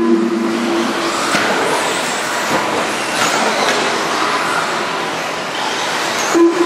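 Electric 1/10-scale off-road RC racing trucks running laps, their motors whining up and down in pitch as they accelerate and brake, over tyre noise on the track. A steady horn-like tone sounds during the first second and again near the end.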